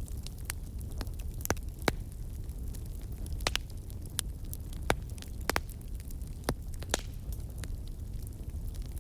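Wood fire in a fireplace, its burning logs crackling with irregular sharp pops and snaps over a steady low rumble. The loudest pops fall about two seconds in and about five seconds in.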